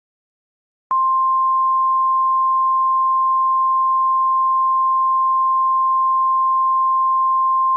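Emergency alert attention tone: one steady, unwavering high-pitched beep. It starts abruptly about a second in and holds without a break, announcing an alert message that is about to be read.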